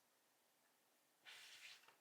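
Near silence, then a little over a second in a brief soft scraping rustle lasting under a second, from hands working Play-Doh on the work surface.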